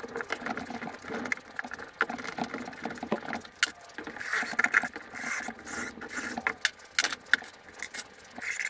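Cordless DeWalt driver running screws into the pine slats of a planter box in a few short runs about halfway through, between sharp clicks and knocks of handling.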